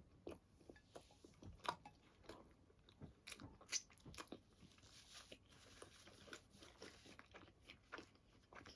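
Faint chewing and biting close to the microphone: irregular soft crunches and wet mouth clicks, a few every second.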